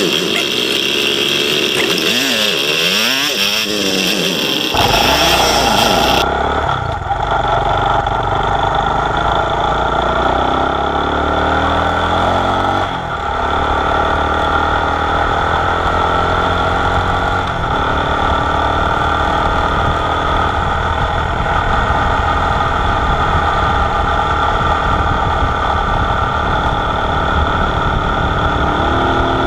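1969 Honda SL90's small single-cylinder four-stroke engine, heard from onboard, pulling away and rising in pitch through the gears with a brief drop in sound about 13 seconds in at a gear change, then running steadily at road speed.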